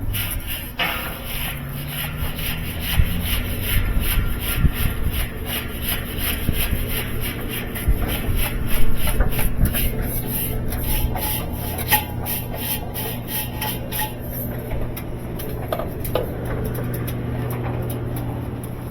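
Rapid, rhythmic scraping or brushing strokes, several a second and kept up throughout, over a steady low hum.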